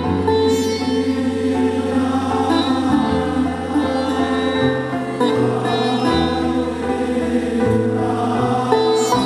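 Indian-style music with sitar over sustained low notes that step to a new pitch every second or two, with a choir-like vocal layer.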